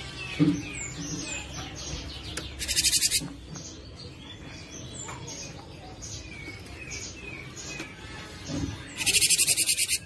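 Cinereous tit (gelatik batu) singing and calling in a run of short, quick whistled and chirped notes, broken twice by a loud, harsh, buzzing rattle: once briefly about three seconds in and again, longer, near the end. A brief low thump sounds near the start.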